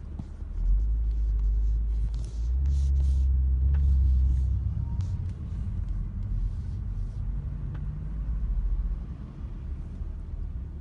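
Steady low rumble of engine and road noise heard from inside a car's cabin in slow, heavy traffic, heaviest in the first few seconds.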